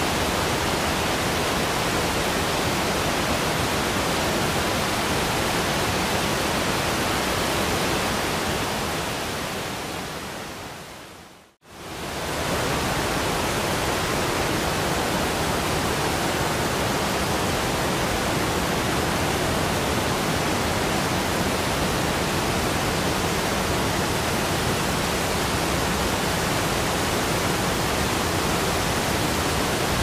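Steady rushing white-noise sleep sound, an even hiss across the whole range. About a third of the way through it fades down over a few seconds to a brief silence and then snaps straight back, as at the join of a loop.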